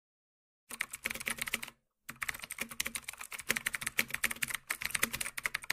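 Rapid typing on a computer keyboard, a dense run of key clicks starting under a second in, with a brief pause about two seconds in.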